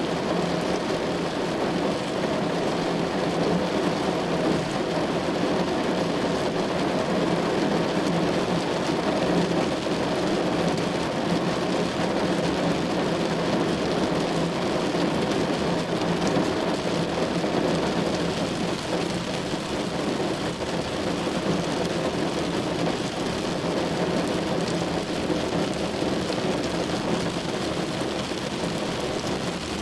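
Heavy rain drumming on a car's body, a dense, steady patter with a strong low drone.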